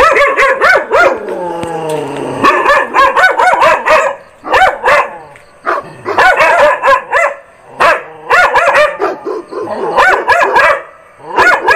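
Dog barking loudly in quick runs of barks with short pauses between. About a second in there is a long falling whine.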